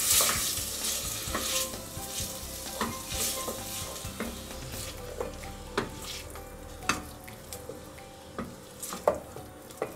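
Chopped bacon and onion sizzling in olive oil in a pot as the bacon crisps, the hiss loud at first and dying down over the first few seconds. Occasional sharp clicks and knocks of a utensil against the pot as it is stirred.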